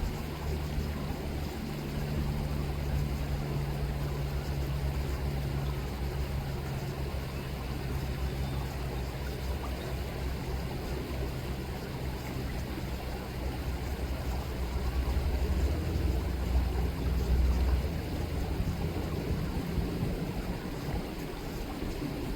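River water rippling under a steady low engine drone from a distant motor, possibly a boat, vehicle or aircraft. The drone swells in the latter part and drops away a few seconds before the end.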